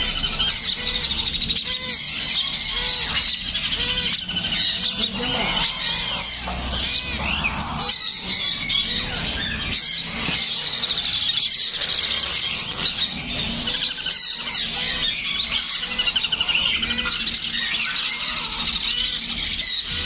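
A crowd of parakeet chicks calling at once: a dense, continuous chorus of shrill squawks and chirps.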